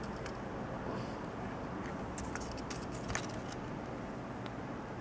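Steady background hiss with a few light clicks, a cluster of them about two to three seconds in.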